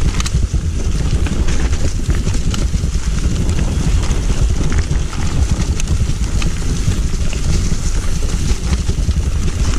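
A mountain bike descending a dirt forest trail, heard from an on-bike action camera: heavy wind rumble on the microphone, tyres rolling over dirt and leaves, and frequent clicks and rattles as the bike goes over bumps.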